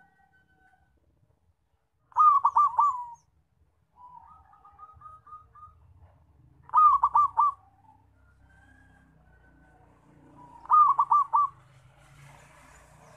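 Zebra dove (perkutut) cooing: three loud bursts of about four quick, clipped coos each, a few seconds apart, with softer, fainter notes between them.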